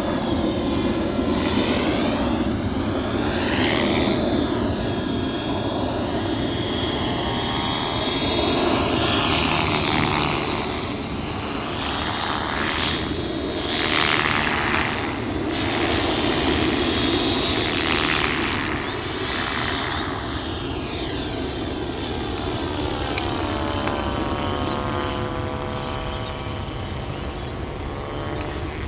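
Align T-Rex 550 electric RC helicopter in flight: a steady high-pitched whine from the motor and drive gears over rotor noise, swelling and fading several times as the helicopter passes back and forth.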